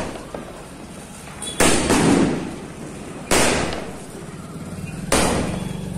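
Diwali fireworks going off: three loud bangs evenly spaced about 1.7 seconds apart, each dying away over about a second.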